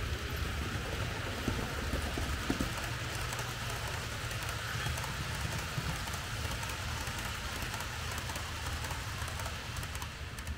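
Märklin H0 model train running along the track: a steady rushing hiss of wheels on rails over a low motor hum, with a couple of short clicks about one and a half and two and a half seconds in.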